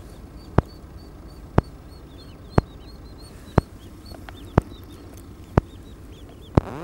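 Ducklings peeping in many short, high cheeps. Over them, a sharp click repeats evenly about once a second.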